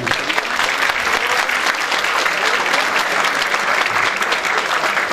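Crowd applauding: steady, dense clapping from the audience and the cast on stage.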